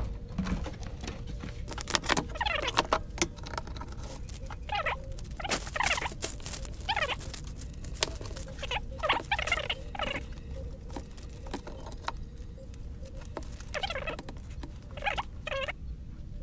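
Hands handling the parts of a homemade lightbox: plastic and paper sheets rustling in short spells, with scattered small clicks and taps as pieces are lifted and set down.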